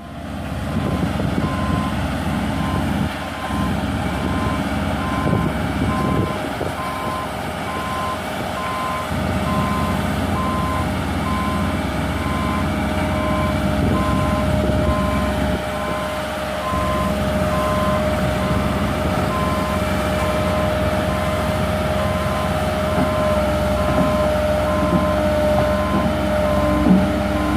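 Heavy-equipment diesel engine running, with a reversing alarm beeping steadily a little more than once a second, typical of a vibratory road roller or its transport truck manoeuvring during loading.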